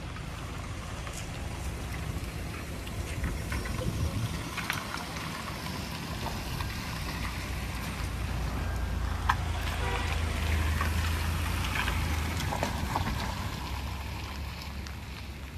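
Cars driving slowly past on a wet road: a low engine rumble that swells to its loudest around the middle and then fades, with scattered light ticks over it.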